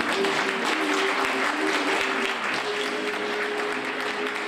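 Audience applauding steadily, with music under it holding a few long notes.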